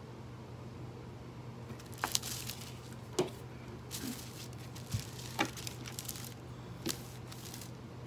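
Thin metallic heat-transfer foil crinkling and rustling as it is pressed and smoothed by hand and the iron moves over it, with several sharp crackles, starting about two seconds in. A steady low hum runs underneath.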